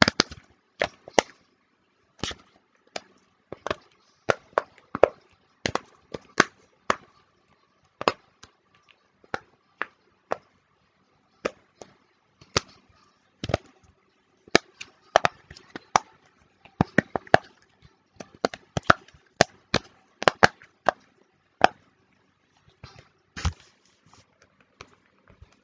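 Small plastic fidget toys being handled and clicked: sharp single clicks and taps at uneven spacing, sometimes in quick runs of two or three.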